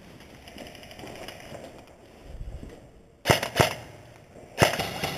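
Airsoft guns firing at close range: two sharp cracks about a third of a second apart a little past three seconds in, then a quicker run of cracks near the end.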